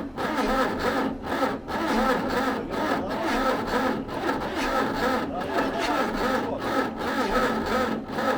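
Electric starter cranking the T-40AM tractor's cold air-cooled diesel, a whirring grind that swells and dips in a slow, uneven rhythm as the engine turns over without catching. The weak battery isn't enough to spin it up to start in the frost.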